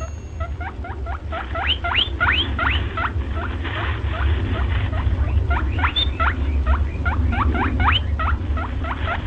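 Small animals squeaking over and over in a fast run of short, rising, high-pitched squeaks, about four or five a second, with a steady low rumble underneath.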